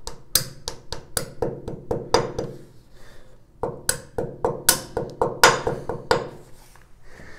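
Hammer tapping wall anchors into holes drilled in the shower tile: quick light strikes, about four a second, in two runs with a short pause about three seconds in.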